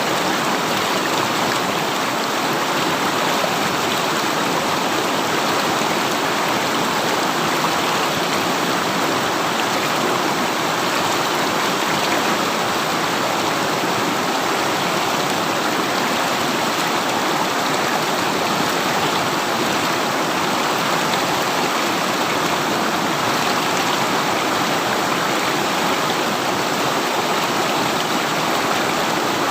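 River water rushing steadily over rocks, a loud, even rushing sound without breaks.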